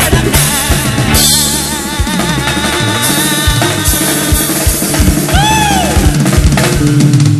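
Live rock band playing, with a drum kit's bass drum and snare hits driving it over bass and electric guitar. About two-thirds of the way through, a high pitched note rises and falls in an arch.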